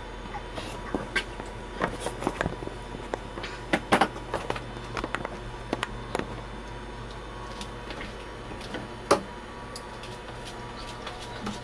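Scattered clicks and knocks of hands and tools working on the pipes and fittings under a kitchen sink, the loudest knocks about four seconds in and about nine seconds in, over a steady low hum.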